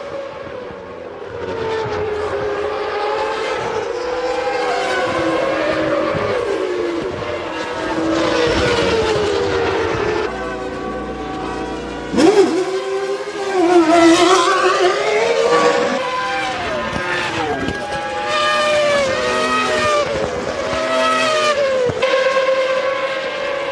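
1997 Formula One cars racing at high revs: several high-pitched engine notes overlapping, their pitch climbing and dropping with gear changes and as cars pass. The sound gets suddenly louder about halfway through.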